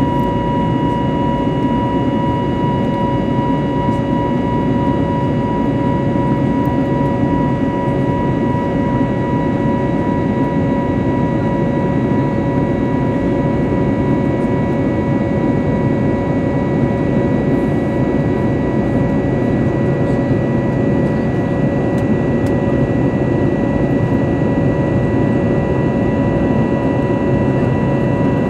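Steady cabin noise of an Airbus A320 airliner in flight: a loud, even rush of engine and airflow noise, with a few steady whining tones on top.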